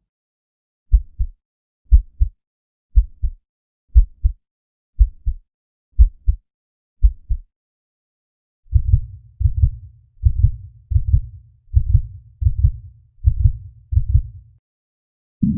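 Heartbeat sound effect: low double thumps, lub-dub, about once a second for seven beats. After a short pause it comes back faster and fuller, about three beats every two seconds.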